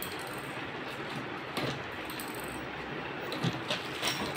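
A handful of short clicks and knocks from the plastic cabinet and fittings of a Kutchina RO water purifier being handled during assembly, scattered over a steady hiss.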